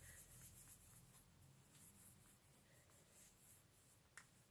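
Very faint, soft brushing as an anti-static powder brush is wiped over cardstock, with a small click a little after four seconds.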